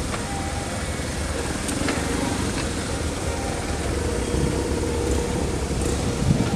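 Police BMW boxer-twin motorcycles riding slowly past in a convoy, engines running at low speed. The engine sound grows a little louder near the end as the nearest bike draws close.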